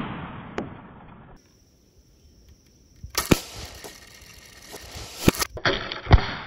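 Homemade slingshot shots and balloons being hit: a fading noise at first, a short silent gap, then sharp snaps about three and five seconds in and a heavier hit just after six seconds.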